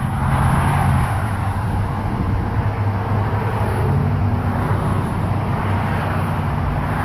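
Steady interstate highway traffic passing below: a continuous rush of tyres with the low hum of car and truck engines.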